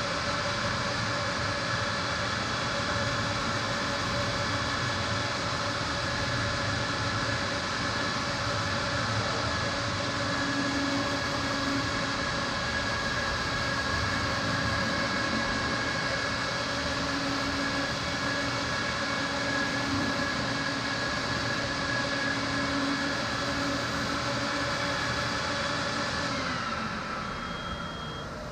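Motor-driven rug-cleaning machine (the XpetPee system) running steadily with a hum and hiss, then spinning down near the end as its tones fall and the sound fades.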